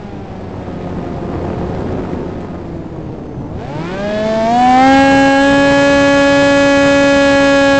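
Onboard sound of a Flite Test Mighty Mini F-22's electric motor and propeller: the whine falls away as the throttle comes off, leaving rushing air for a few seconds, then climbs sharply about four seconds in and holds a steady pitch under power.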